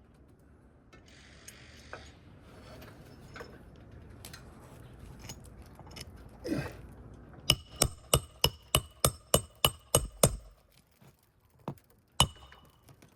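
Hammer driving a roofing nail into an asphalt shingle: a run of about ten quick ringing strikes, roughly three a second, then one more strike near the end. Before the strikes, the shingle rustles and scrapes.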